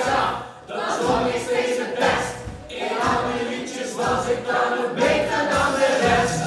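A group of voices singing together in chorus over accompanying music, in phrases separated by short breaths.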